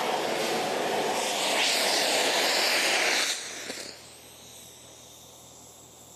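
Oxygen-and-kerosene thermal shaping torch running with a loud, steady jet-like rushing noise, the stone-finishing flame. It grows brighter about a second and a half in, stops abruptly a little over three seconds in, and leaves a faint steady hum.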